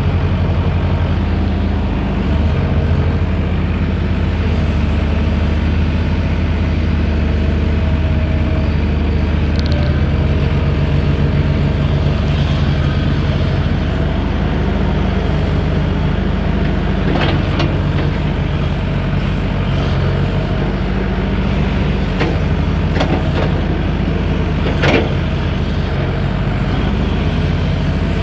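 Diesel excavator engine running steadily, with its low drone changing slightly as it works. A few short sharp sounds, which may be metal or hydraulic noises, come in the second half, the loudest shortly before the end.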